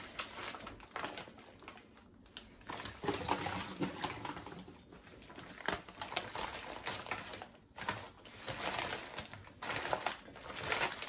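Paper towel crinkling and rustling in irregular bursts as raw chicken thighs are patted dry and laid in a baking pan.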